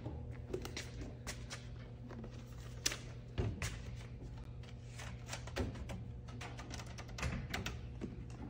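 Faint scattered taps and knocks, a few seconds apart, over a steady low hum.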